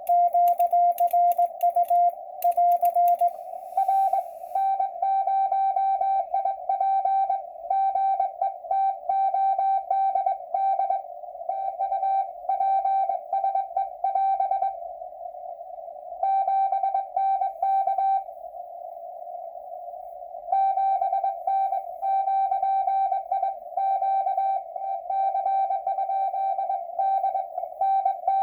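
Morse code (CW) heard on an amateur radio receiver: a single tone keyed on and off in dots and dashes over a narrow band of receiver hiss. The first signal, with sharp clicks on each element, stops about three and a half seconds in, and a slightly higher-pitched signal carries on. It pauses for about two seconds near the end, leaving only hiss.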